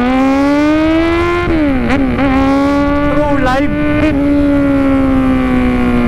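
Kawasaki Z1000 inline-four engine pulling hard while riding: the engine note rises for about a second and a half, drops at an upshift, then holds a fairly steady pitch while cruising, with wind and road rush underneath.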